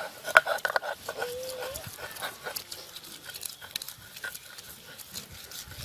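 Garlic cloves crushed on a Bengali shil-nora grinding stone: a run of irregular knocks and crunches as the stone is rocked and pressed against the stone slab, the sharpest knock just after the start. In the first two seconds a short background call is heard.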